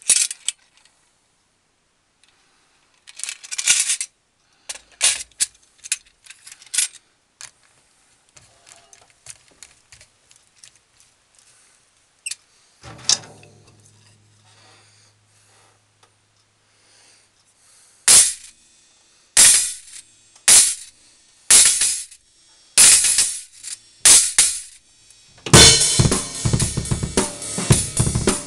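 A cracked 9½-inch Orion china cymbal, cut down into an effect cymbal with tambourine-style jingles cut from a Sabian B8 Pro china, is first shaken and tapped in short jingling clusters, then struck with drumsticks about once a second. In the last few seconds a full drum-kit beat starts with it.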